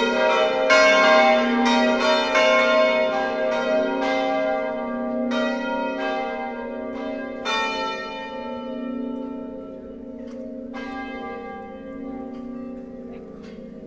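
Full-circle swinging church bells, the five largest of a De Poli ring tuned F, G, A, B-flat and C, ringing a festive peal together. The strikes thin out and the ringing fades as the bells slow to a stop, with the last single strike near the end.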